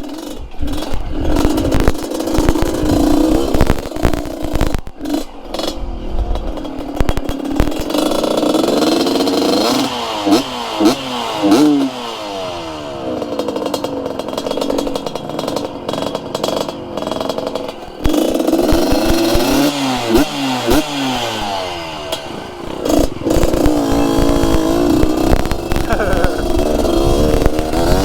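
Yamaha RX-King 135 cc two-stroke single in a trail motorcycle, revving up and down in repeated bursts as it is ridden over rocky ground. Knocks and clatter from the bike come through along with it.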